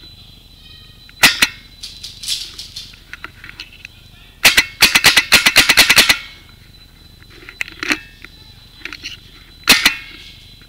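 Paintball marker firing: a single shot about a second in, a fast string of about a dozen shots in under two seconds around the middle, and another single shot near the end, with fainter pops in between.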